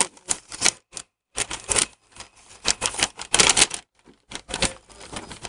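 A large folded paper instruction sheet rustling and crackling in irregular bursts as a child unfolds and handles it.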